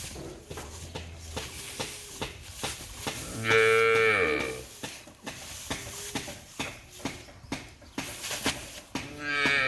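A calf mooing: one long call a few seconds in, falling slightly in pitch, and a second call starting near the end. Scattered short clicks and knocks run between the calls.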